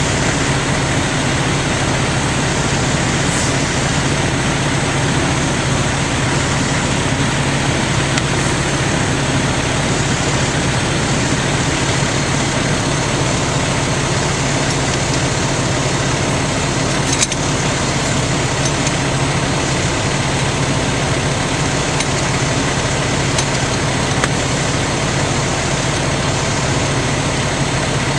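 Fire engine's engine running steadily, a continuous low drone under an even rush of noise. A single sharp click about seventeen seconds in.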